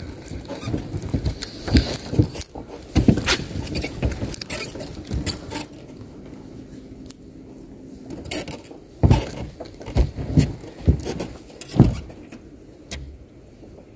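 Irregular clicks, knocks and rattles of fishing tackle being handled in a jon boat, with louder knocks in the second half.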